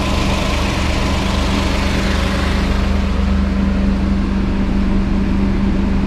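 Small kei-car engine of a Suzuki Wagon R / Mazda AZ-Wagon idling steadily with the air-conditioning running, a constant hum under a rushing noise, during an A/C refrigerant recharge with the charge at about the right level.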